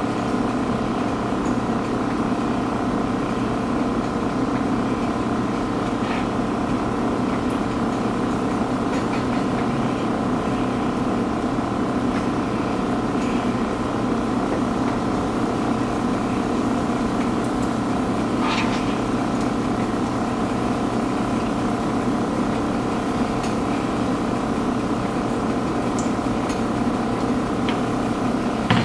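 Steady machine hum made of several fixed tones, unchanging throughout, with a few faint light clicks.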